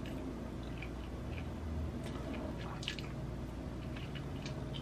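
Quiet eating sounds: a few soft, wet mouth clicks from chewing food, spaced irregularly over a low steady hum.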